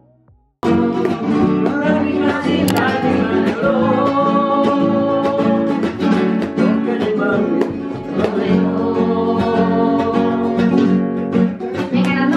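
Spanish guitar strummed in a flamenco rhythm with a voice singing along, starting abruptly about half a second in.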